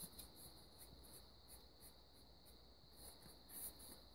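Near silence: faint rustling and soft ticks of thin cardboard being bent and folded by hand, over a steady faint high-pitched whine.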